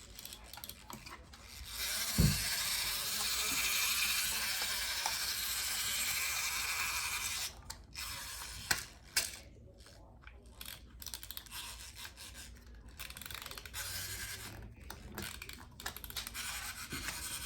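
Plastic wind-up toy mixer's clockwork mechanism whirring steadily for about five seconds, after a thump about two seconds in, followed by fainter clicks and rustling of toy parts.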